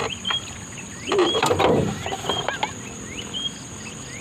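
Clicking and a rattling clatter, loudest about a second in, as a bamboo-tube prawn trap with a plastic-bottle end is shaken and tipped to empty freshwater prawns into a tin can. A short rising chirp repeats over and over, and insects whine steadily behind.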